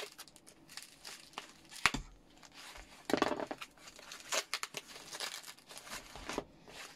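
White foam packing wrap being unwrapped by hand: irregular crinkling and rustling with scattered clicks and a few tearing sounds, and a sharp click about two seconds in.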